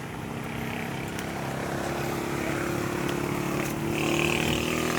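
A motor vehicle's engine running with a steady hum that grows louder over the first few seconds, as if the vehicle is drawing near.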